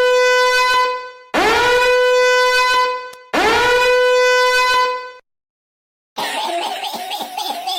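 Air horn sound effect sounding three long blasts at one steady pitch, each lasting about two seconds with short gaps between. After a pause, a quieter, rougher sound follows near the end.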